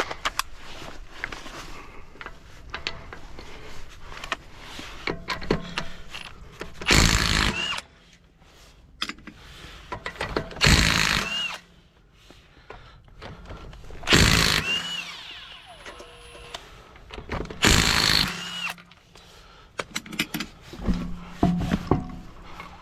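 Cordless impact wrench running on a car's lug nuts during a roadside tire change: four bursts of about a second each, a few seconds apart, each ending as the motor whines down, with small clicks of handling between them.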